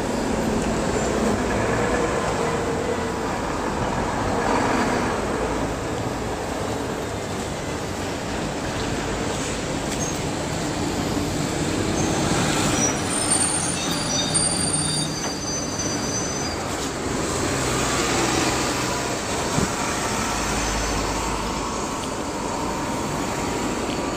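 Busy street traffic: a double-decker bus and cars running past at a junction, with a steady rumble and tyre noise. A few short high-pitched squeals sound around the middle.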